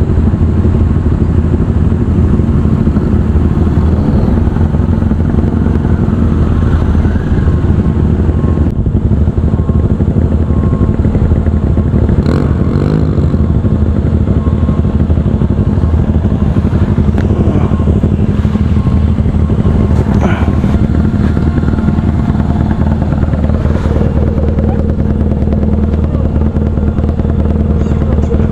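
Motorcycle engine running at a steady, unchanging speed, a loud continuous low hum, with a few faint clicks about twelve and twenty seconds in.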